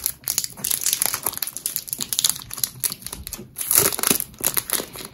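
Clear plastic wrapper crinkling and crackling in the hands as it is pulled open and off a small paper note pad, with a louder burst of crinkling about four seconds in.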